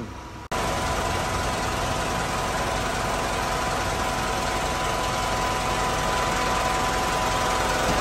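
Mitsubishi Canter truck's diesel engine idling steadily with its newly fitted air conditioning running, a thin steady whine on top of the engine noise. It starts abruptly about half a second in.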